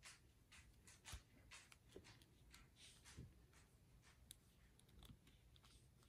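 Faint, irregular small clicks and scrapes of hands adjusting a plastic action figure and its accessories to pose it.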